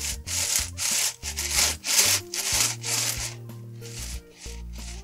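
Layers of a Shengshou 15x15 plastic puzzle cube being turned by hand, a quick run of scraping, rubbing turns. These are the first turns of a new puzzle, which still has some friction and needs breaking in.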